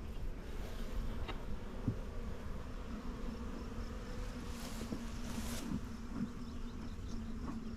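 Honeybees buzzing around an opened hive, a steady hum with a few faint clicks.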